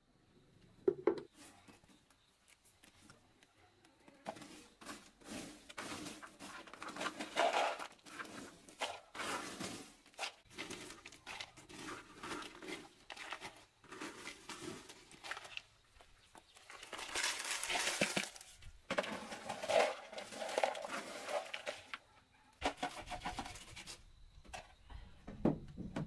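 Dried cassava slices being scooped and stirred by hand in a basket and plastic bowl: irregular dry rustling and clattering of the brittle chips, with a louder, longer rush of them about two-thirds of the way through.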